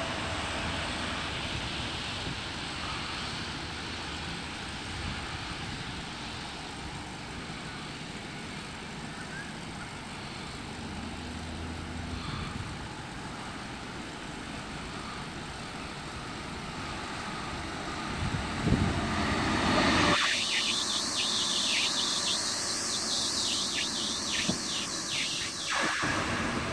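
Steady rushing outdoor noise beside a railway line in wet weather. About twenty seconds in it gives way suddenly to a louder hiss, which stops abruptly near the end.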